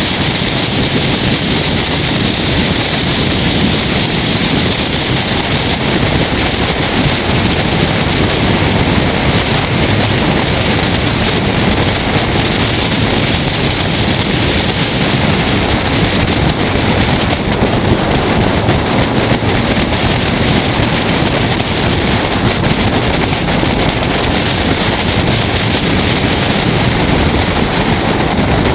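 Race car driving at speed on a circuit, heard through a camera mounted on its bonnet: engine noise buried under steady, heavy wind rush on the microphone.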